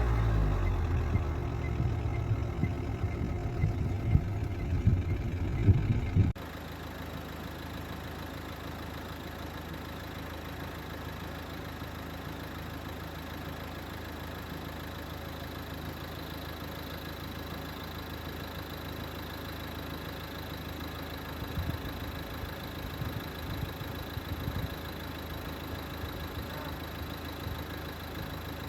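A motor engine running: a loud, rough low rumble with a few knocks, which drops off suddenly about six seconds in to a steady, quieter hum like an idle.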